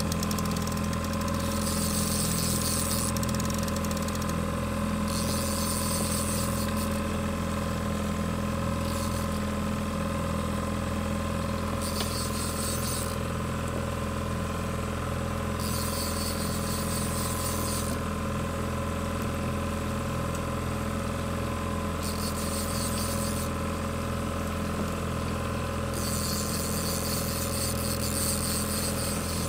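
Boat's outboard motor idling steadily through the whole stretch, with a constant hum. Over it, short stretches of high hiss come and go several times, each lasting a second or two.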